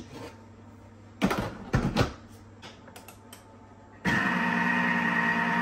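Vorwerk Thermomix mixing bowl knocked and clicked into place, then about four seconds in the motor starts with a steady humming whine as it kneads bread dough.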